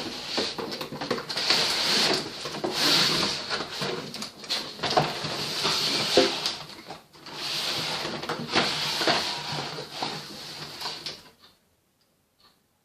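Toy box packaging being opened by hand: a run of rustling, scraping and tearing bursts that stops suddenly about eleven seconds in.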